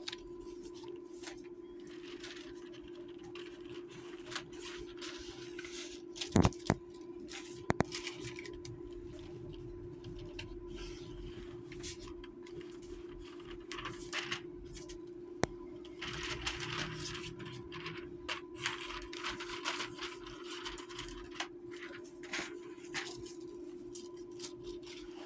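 Stiff card boxes and their clear plastic window film being handled, rustling and crinkling in patches, mostly in the second half, with a few sharp taps or clicks a few seconds in. A steady hum runs underneath throughout.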